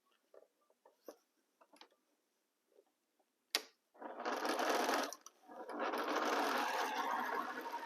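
Sewing machine stitching a seam: a few faint handling clicks, a sharp click about three and a half seconds in, then the machine runs for about a second, stops briefly and runs steadily again.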